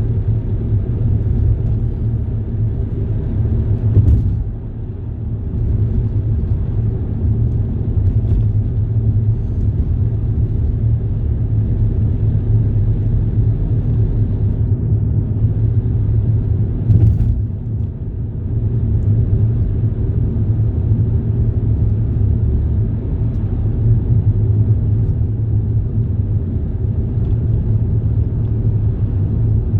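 Steady low rumble of a vehicle in motion, with two brief knocks, one about four seconds in and one about seventeen seconds in.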